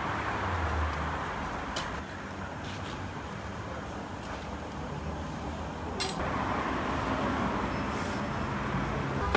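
Steady background noise of a busy outdoor food stall, with a few sharp metallic clinks, the loudest about six seconds in, as a metal utensil knocks against a steel bowl of roast lamb.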